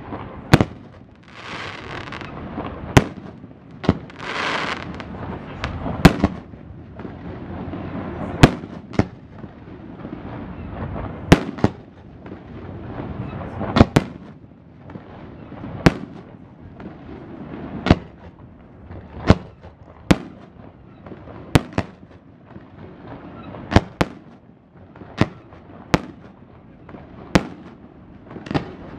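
Aerial fireworks shells bursting with sharp bangs, about one every one to two seconds, with a rushing hiss between the bangs.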